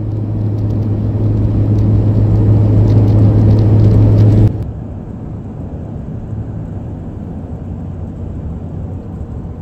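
Road and engine noise heard inside a vehicle cruising on a highway: a steady drone with a strong low hum that grows louder, then cuts off abruptly about four and a half seconds in, leaving a quieter, even road noise.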